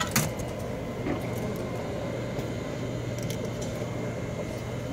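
Shirt-finishing machine's blower running steadily, a low, even fan hum as it blows air through the shirt, with a sharp click just after the start.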